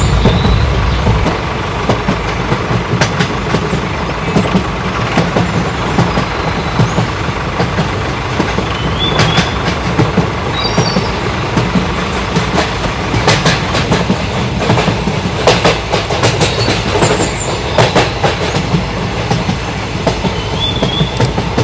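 A train running on its track, the wheels clicking irregularly over the rail joints in a steady clickety-clack. A few short bird chirps sound above it.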